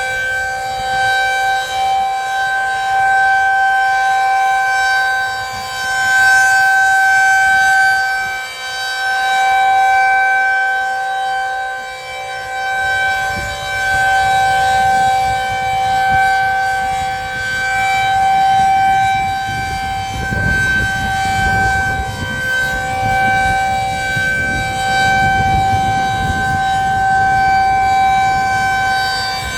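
Federal Signal 2001-SRNB rotating outdoor warning siren sounding a steady tone during a monthly test. The pitch holds level while the loudness swells and fades every few seconds as the siren rotates.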